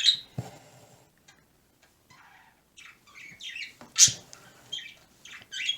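Pet birds talking to each other in quick, high chirps and chattering calls, with a short lull about a second in. A sharp tap comes just after the start, and a louder one about four seconds in.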